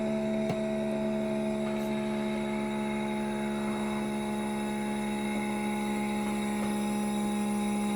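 Keurig K-Mini single-serve coffee maker humming steadily as it draws in water to heat for its first water-only brew, with a small click about half a second in.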